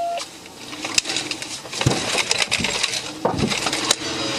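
Several sharp knocks and crunches of metal and glass as a police patrol car rams into the suspect's car and pins it.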